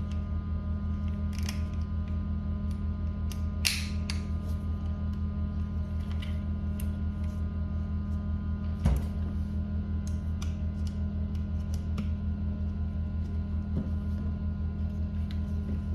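Occasional light clicks and scrapes of small rifle parts and tools being handled during AR9 disassembly, with one louder knock about nine seconds in. A steady low hum runs underneath.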